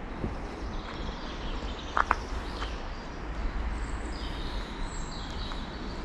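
Outdoor ambience of a natural area: a steady low rumble under faint bird chirps, with one short chirp about two seconds in.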